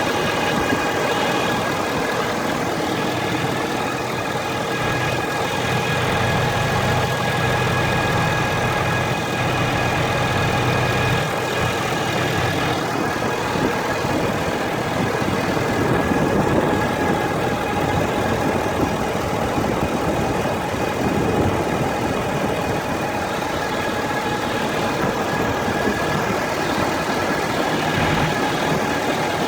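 Ford F-350 diesel engine idling warm, with a steady whine over the running engine. The owner traces the whine to the top of the engine, near a black box on the driver's side or centre.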